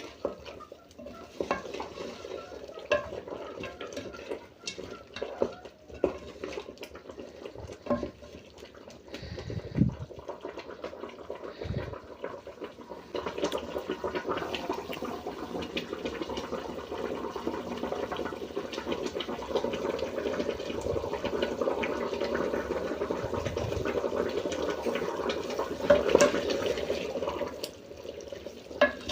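Chicken being stirred in a cooking pot: scattered clicks and knocks of a spoon against the pot, then from about halfway through a continuous stirring and cooking noise.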